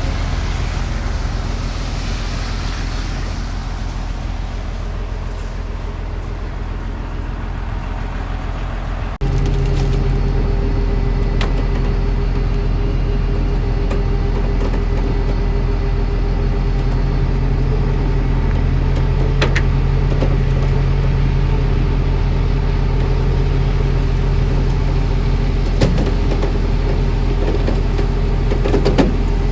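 A motor vehicle's engine running steadily with a low hum. About nine seconds in, the sound jumps abruptly louder and a steady tone comes in, and a few light clicks follow near the end.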